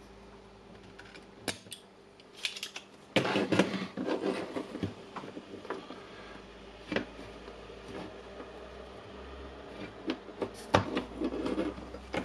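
Small metal tools clicking, tapping and scraping against a charger's circuit board while the power cord wires are being desoldered. The sound comes as scattered sharp clicks, with a busier stretch of scraping and knocking a few seconds in and again near the end.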